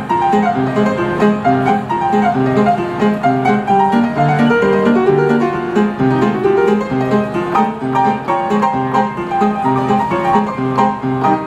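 Upright piano played fast and forcefully, dense runs of notes over a repeating bass pattern.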